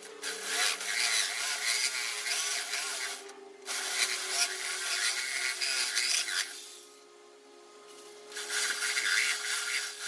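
Reciprocating saw cutting a chamfer into a block of cedar, the blade rasping through the wood. It cuts in three spells, with a short break about three and a half seconds in and a longer pause of about two seconds near seven seconds.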